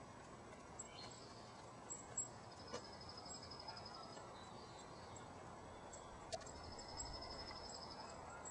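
Faint outdoor background with a high, buzzy trill that comes twice, each about a second long, and a few light clicks.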